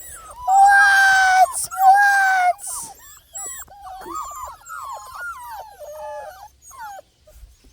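Young Miniature American Shepherd puppies crying: two loud drawn-out cries of about a second each, then a run of short, high, squeaky whimpers and yips.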